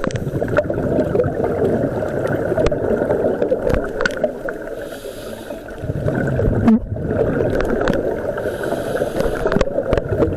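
Muffled underwater gurgling and rumble with scattered sharp clicks, picked up by a camera in a waterproof housing during a scuba dive.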